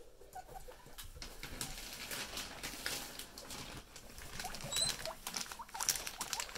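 Baby guinea pigs scurrying and popcorning over wood shavings and hay: a busy rustling patter of small feet, with a few short squeaks about two-thirds of the way through.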